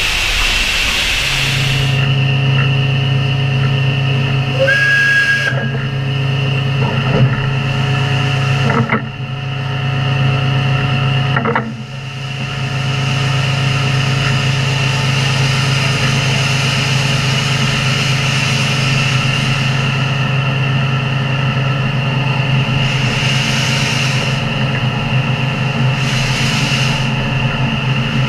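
Tkt48 steam tank locomotive standing with steam hissing from it over a steady low hum. Two brief knocks come midway.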